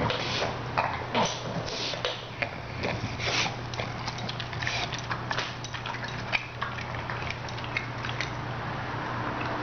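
English bulldog chewing a chunk of ribeye steak: irregular wet smacks and chomps, a piece too big for him to chew easily.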